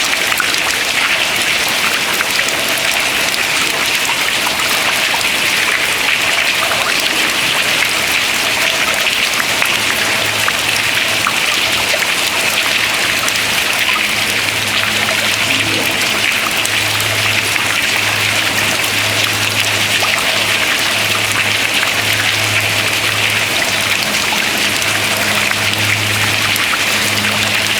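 Water dripping steadily from ice into water below, a dense patter of many small drops. A low steady hum comes in about a third of the way through.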